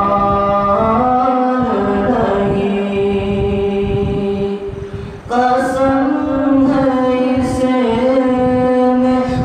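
A nasheed sung a cappella: a voice holding long notes that slide from pitch to pitch, with a short break about five seconds in before the next phrase.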